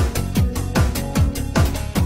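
Electronic dance music with a steady kick drum, about two and a half beats a second, under held synth notes.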